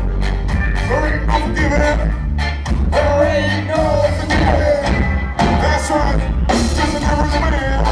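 Ska band playing live: sung vocals over a steady beat and heavy bass.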